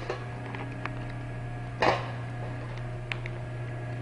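Packaging of a new oxygen-analyzer fuel cell being handled as the cell is unpacked: one short crinkle about two seconds in and a few faint clicks, over a steady low hum.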